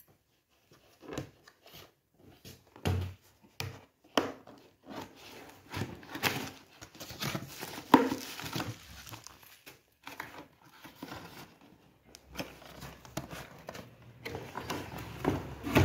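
Cardboard toy box being opened by hand and plastic bubble wrap crinkling as the toy is pulled out, with irregular rustling and a few sharp knocks of the box against the table.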